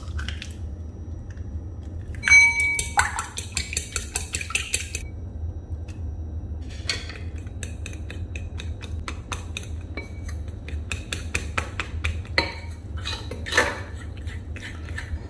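Metal fork stirring egg and flour in a ceramic bowl, with irregular clicks and scrapes against the bowl. A single ringing clink comes about two seconds in, followed by a quick run of rapid clicks.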